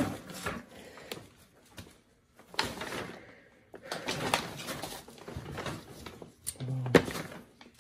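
Handling sounds: a plastic bucket and a small tool being moved about, heard as rustling with sharp clicks in four short spells. The oil burner's motor is not running.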